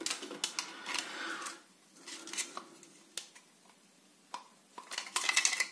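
Hard plastic parts of a disassembled automatic soap dispenser being handled: scattered light clicks and taps and the rub of hands on the plastic housing, with a brief scraping rustle near the end.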